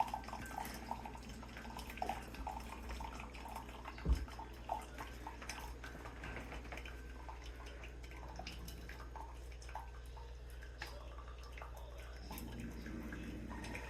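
Instant Solo single-serve pod coffee maker brewing, a thin stream of coffee trickling and dripping into the cup with small irregular ticks. One low thump about four seconds in.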